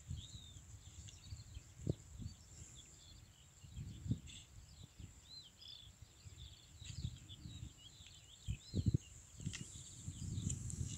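Outdoor ambience of many small birds chirping and warbling continuously, with irregular low thumps and rumbles of wind or handling on the microphone.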